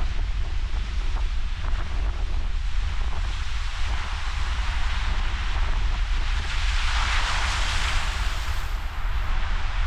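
Ocean surf with wind buffeting the microphone in a constant low rumble; a wave breaks and washes in, swelling to a louder hiss about seven seconds in before fading.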